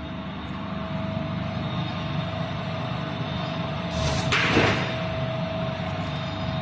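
Vegetable quartering machine running with a steady hum. About four seconds in there is a brief loud burst as a green squash is pushed down through its cross-shaped blades and cut into quarters.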